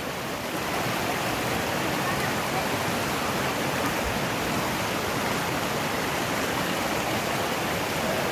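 Mountain stream water rushing steadily, growing a little louder within the first second.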